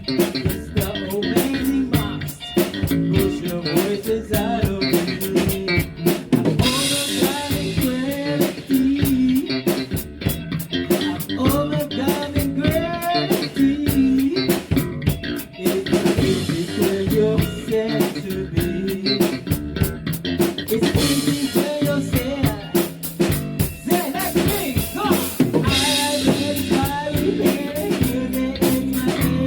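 A rock band playing: drum kit with snare, kick drum and cymbals driving a steady beat under guitar, with bright cymbal washes several times.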